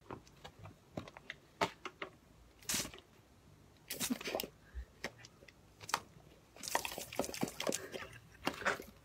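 A German Shepherd snapping and lapping at water from a garden hose spray gun: short bursts of spray and splashing, the longest near the end, with wet chomps and clicks in between.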